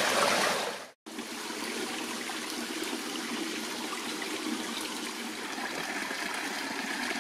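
Small creek trickling and splashing over rocks in a steady rush of water. The sound cuts out for a moment about a second in, then the trickle resumes evenly.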